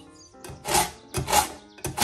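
Steel kitchen knife drawn through a handheld pull-through sharpener: three rasping strokes about half a second apart, the last starting near the end, over background music.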